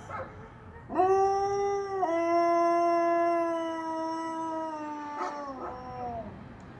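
Siberian husky howling: one long, steady howl of about four seconds, then a shorter howl that falls in pitch near the end.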